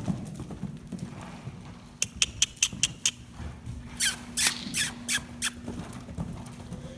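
Saddled Thoroughbred mare cantering loose on sand arena footing, her hoofbeats dull and irregular. Over them come quick high kissing and clucking noises, a run of about six near two seconds in and several louder ones from about four seconds, urging her on.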